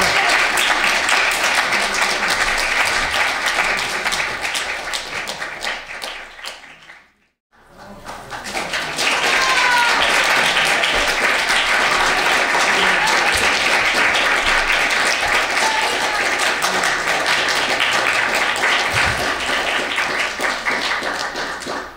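Audience applauding, a dense patter of many hands clapping. The sound drops out completely for a moment about seven seconds in, then the applause resumes and tapers off near the end.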